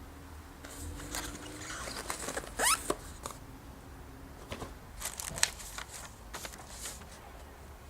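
Packaging being handled: scattered rustles and clicks, with a brief rising scrape or rip about two and a half seconds in and a sharp click near the middle.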